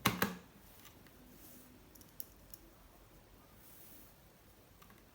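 Two sharp clicks right at the start, then a quiet stretch with a few faint clicks a little over two seconds in, from small parts being handled while a laptop is taken apart.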